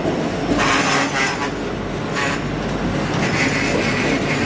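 Double-stack intermodal well cars of a freight train rolling past close by: steady rumble and clatter of steel wheels on the rail, with a higher wheel squeal coming and going.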